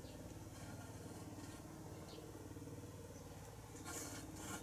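Faint squeaks and snuffles of young kittens nursing, over a steady low hum, with two brief hissy rustles near the end.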